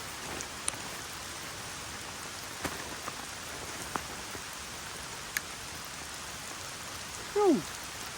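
Steady rain falling, with scattered drops ticking close by. Near the end, a short pitched sound falls quickly in pitch, like a brief voiced exclamation.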